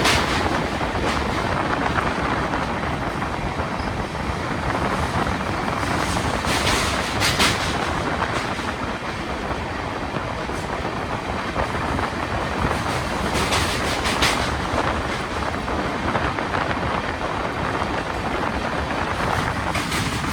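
Passenger train running steadily on the track: a continuous rumble and rush of wheels and rails, broken by a few brief hissing swells.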